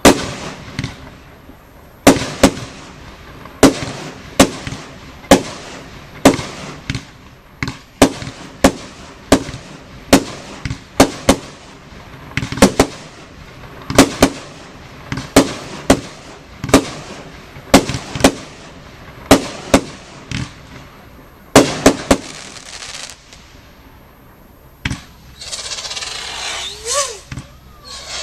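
Consumer fireworks (category F2) going off as a firework battery, firing one sharp bang after another about one to two a second, each crack with a short echoing tail. The shots stop a little after twenty seconds in, and voices follow near the end.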